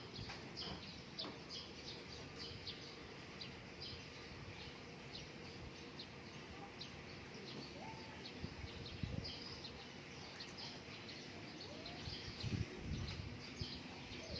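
Small birds chirping, many short high chirps scattered throughout over a faint steady background, with a few soft low thumps near the end.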